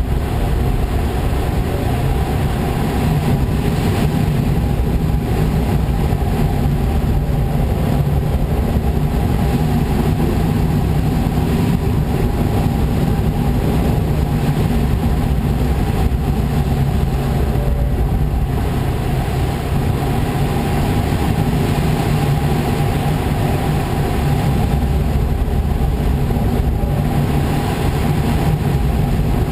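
Steady rush of air past a glider's cockpit in flight: an even, unbroken wind noise with a low rumble.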